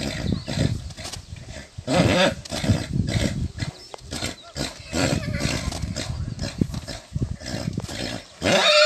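A Kathiyawadi horse prancing under a rider, with irregular loud animal sounds coming in bursts every half second to a second and a louder pitched call near the end.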